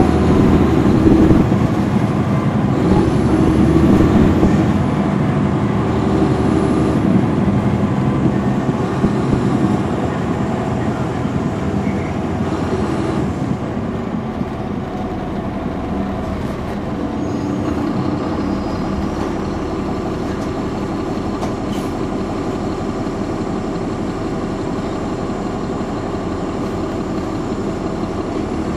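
Caterpillar C13 six-cylinder diesel of a NABI 416.15 transit bus, running hard and pulling strongly for the first several seconds. About ten seconds in it eases off to a quieter, steady drone.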